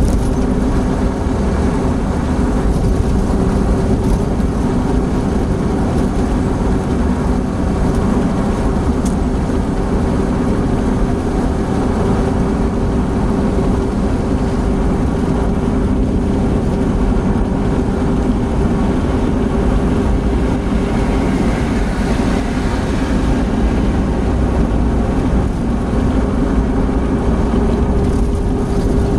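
Opel Blazer cruising at highway speed, about 100 km/h, heard from inside the cabin: a steady drone of engine, tyre and wind noise with a constant hum.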